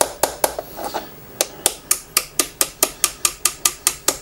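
Light, quick taps of a small Wheeler gunsmithing hammer on a pin punch, about four a second, with a short pause a little under a second in. The taps are driving the trigger pin out of a CZ 457 trigger.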